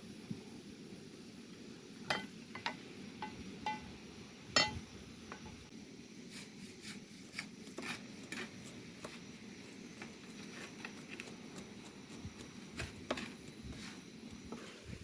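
Utensils clinking and tapping against cookware: scattered sharp clinks, a few with a short ringing tone, over a steady low rumble.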